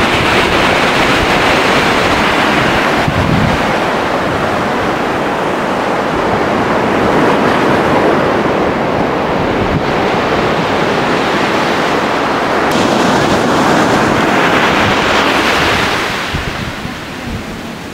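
Ocean surf breaking and washing up a sandy beach, with wind buffeting the microphone; the sound eases a little near the end.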